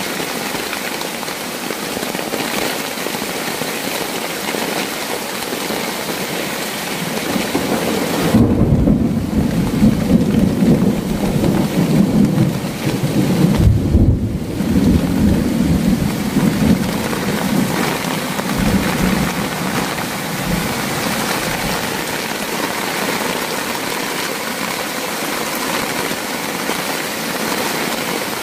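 Heavy rain falling steadily, with a long roll of thunder rumbling in about eight seconds in and lasting several seconds before it fades back under the rain.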